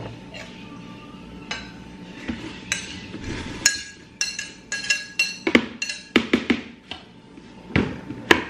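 Metal utensils clinking and tapping against dishes, a string of sharp, ringing clinks bunched in the middle, with scattered lighter knocks around them.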